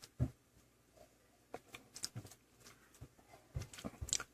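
Faint handling sounds of phone repair work: scattered soft taps and short rustles, with a small cluster of them near the end.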